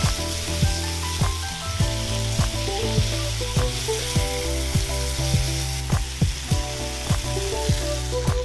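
Thinly sliced beef frying in a hot pan, a steady sizzle, over background music with a steady beat.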